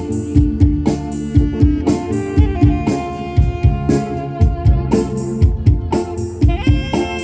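Instrumental music: a pitched melody line over a steady drum beat, with a new held higher note sliding in near the end.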